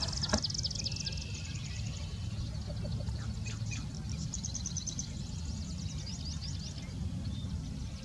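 A male yellow-headed blackbird calling, amid fast runs of high, thin chirps that repeat throughout, over a steady low wind rumble.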